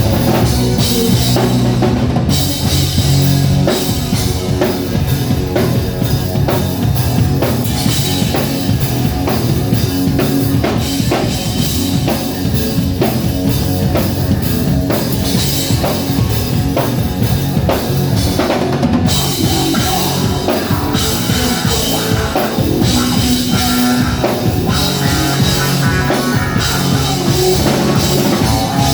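Live rock band playing an instrumental passage: full drum kit with steady beats, bass and electric guitar, loud and continuous.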